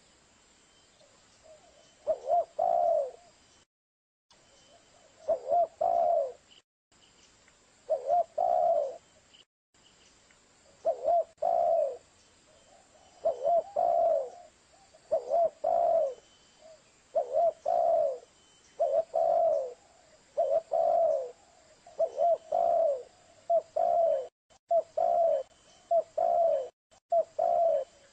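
Spotted dove (tekukur) cooing: a lure-call recording of repeated short phrases of a few low coos. The phrases come every two to three seconds at first, then closer together, about one a second near the end.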